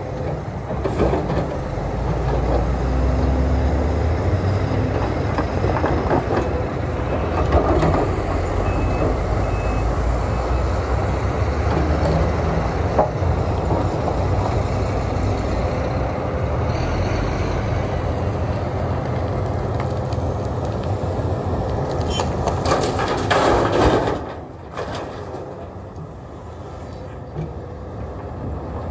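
Sumitomo SH300 excavator's diesel engine and hydraulics working hard while loading stony material into a dump truck. Two stretches of heavier rushing noise stand out, the second near the end, after which the engine settles to a lower level.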